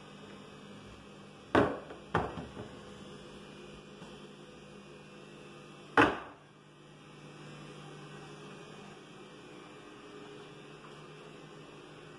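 Polyester-finish kitchen cabinet doors being handled and knocking shut: two knocks about half a second apart around a second and a half in, then a single louder knock about six seconds in. A steady low hum lies under them.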